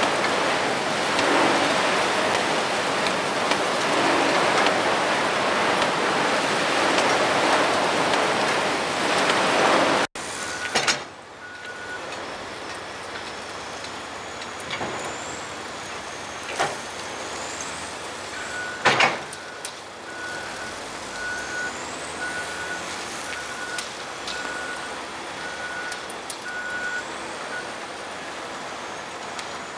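Loud, steady heavy-machinery noise that cuts off abruptly about ten seconds in, followed by a quieter mechanical background with a few sharp knocks and a vehicle's reversing alarm beeping repeatedly through the second half.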